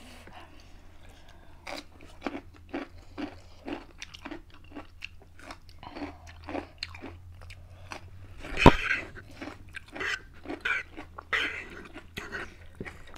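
Close-up mouth sounds of people eating: a steady run of chewing and biting strokes, about two a second. About nine seconds in, a single sharp knock, the loudest sound, with a short burst of noise after it.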